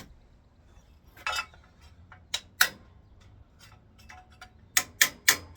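About six sharp clicks as a sheet-steel rocker patch panel is worked by hand: one about a second in, two close together shortly after, and three quick ones near the end.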